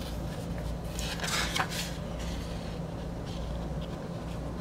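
Pages of a paper CD booklet being handled and turned, with a short rustle about a second in, over a steady low hum.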